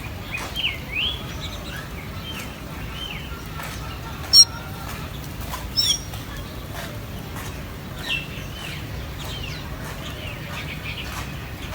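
Small birds chirping, a run of short up-and-down whistled notes, with two louder sharp calls about four and a half and six seconds in.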